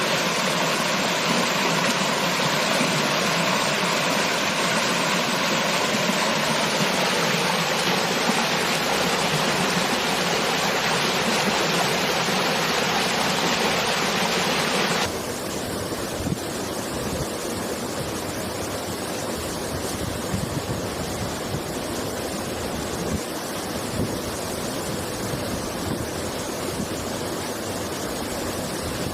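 Steady rush of falling water from a waterfall. About halfway through it cuts abruptly to a quieter, duller rush of water with a few small splashes.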